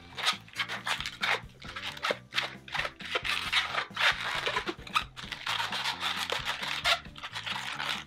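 A white latex 260 twisting balloon squeaking and rubbing in quick, irregular strokes as it is folded, squeezed and twisted into small flower petals. Soft background music plays underneath.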